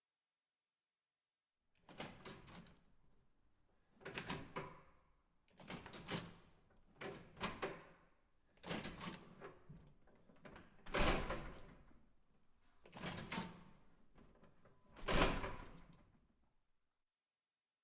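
Push bar (panic bar) door being operated again and again: about eight separate metal clunks and latch clacks, each with a short rattling tail, one to two seconds apart after a brief quiet start. Two of the clunks, near the middle and about two-thirds of the way through, are louder than the rest.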